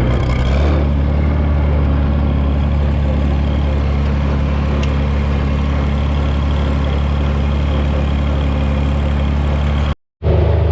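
A heavy farm machine's engine running steadily with a low, even hum. Its pitch steps slightly under a second in, and the sound cuts off abruptly near the end.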